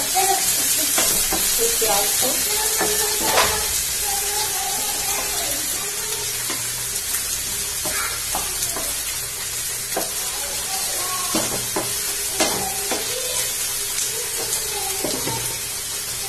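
Sliced onions and whole spices sizzling in hot oil in a nonstick kadhai, with a spatula stirring and scraping against the pan every second or so.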